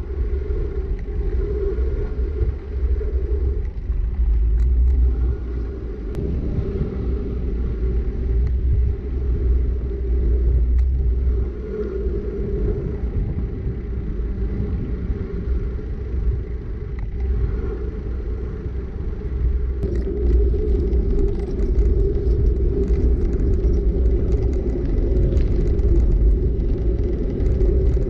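Wind rumbling on an action camera's microphone as a mountain bike rolls downhill on an asphalt road, with a steady tyre hum. Small clicks and crackles join in during the last third.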